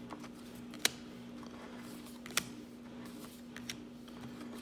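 Trading cards being handled and shuffled through a stack, with three sharp card clicks spaced about a second and a half apart over a steady low hum.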